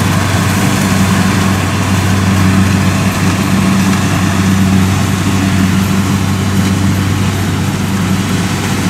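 Kubota DC70 rice combine harvester's diesel engine running steadily under load while it cuts and threshes rice, a constant low drone with machinery noise over it.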